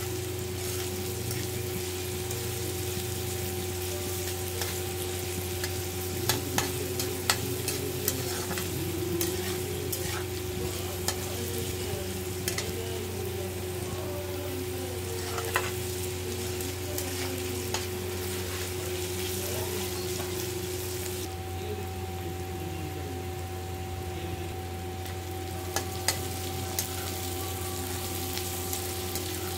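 Sliced onions and green chillies sizzling in hot oil in a steel pan, with a steady frying hiss. A metal spatula stirring them clinks and scrapes against the pan now and then.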